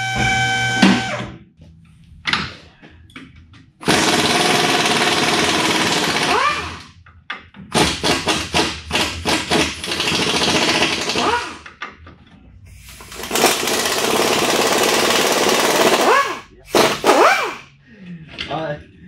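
Air impact wrench on the truck's front suspension, run in three long bursts of several seconds each, with a short whine that changes pitch as each burst ends.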